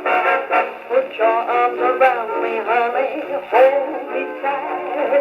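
Acoustic wind-up gramophone with a rebuilt salon soundbox playing an old 78 rpm dance-band record through an extra-loud steel needle: a man sings over the band. The sound is thin and nasal, with no deep bass and no high treble.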